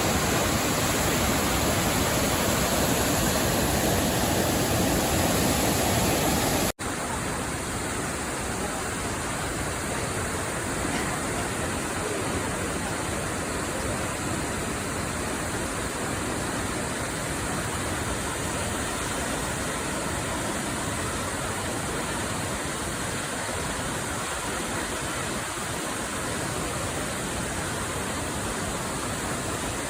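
Nachi Falls, a tall waterfall, rushing steadily as an even wash of water noise. About seven seconds in it breaks off for an instant and resumes a little quieter.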